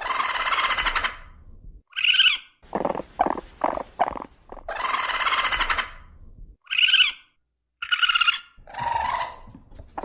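Raccoon vocalizing: a harsh screech about a second long at the start and again near the middle, broken up by short, high whining calls and a run of short, quick pulses.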